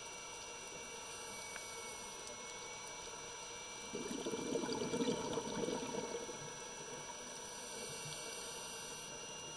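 Underwater sound from a scuba diver's camera: a steady hiss with faint high steady tones, and, about four seconds in, a burst of bubbling lasting about two seconds, the diver's exhaled breath leaving the regulator.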